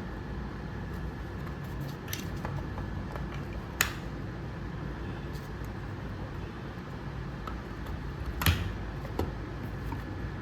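Steady low background rumble with a few sharp clicks, the loudest about four seconds in and another about eight and a half seconds in.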